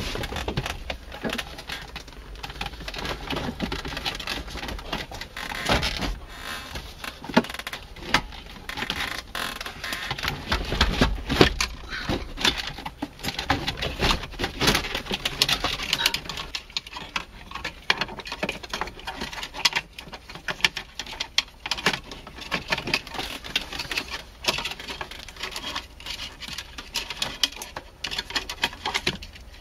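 Plastic dashboard of a Mercedes-Benz W202 C-Class being forced loose and pulled out by hand: irregular knocks, clicks, creaks and scrapes of plastic trim against the car's interior.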